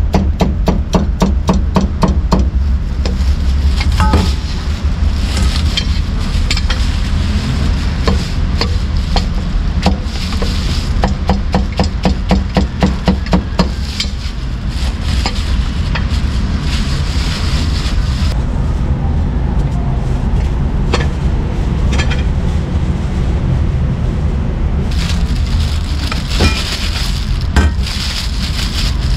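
Meat cleaver chopping crispy roast pork belly on a thick wooden chopping block in quick even strokes, about five a second. One run comes at first and another about ten seconds in, with scattered single chops between. A steady rumble of street traffic runs underneath.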